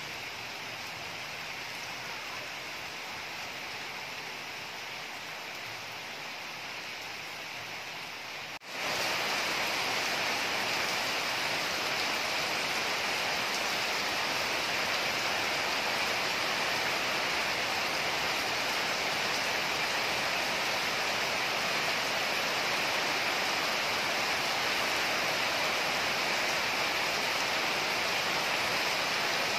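Steady rain falling on a yard and trees, an even hiss of water. About nine seconds in it cuts abruptly to a louder, brighter downpour that continues steadily.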